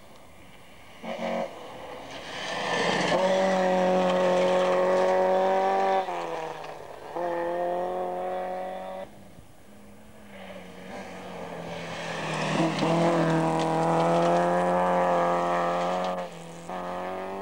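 Rally car engine revving high on a gravel special stage. It is held steady for a few seconds, then drops off abruptly as the driver lifts, twice over.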